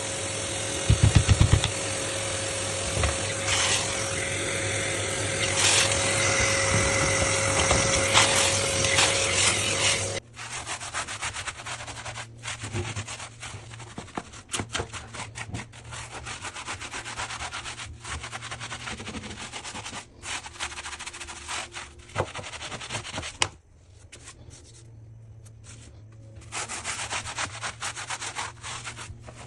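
Sanding wood parquet: a sander runs steadily for about ten seconds, then cuts off suddenly. Quieter, irregular rubbing and scraping on the wood follows, over a low hum.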